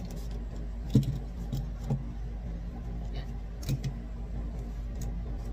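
Clicks and light knocks from handling a UBeesize flexible octopus tripod's phone clamp and ball head, the sharpest about a second in, over a steady low hum.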